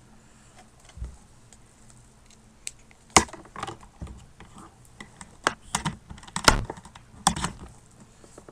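Handling noise: an irregular run of clicks and knocks, some with a dull thump, loudest at about three and six and a half seconds in.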